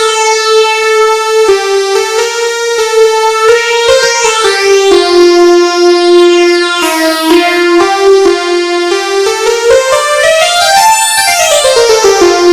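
Instrumental ringtone melody played on an electronic keyboard with an electric-piano and synth sound. A single line of held notes moves up and down, with a quick run up and back down near the end.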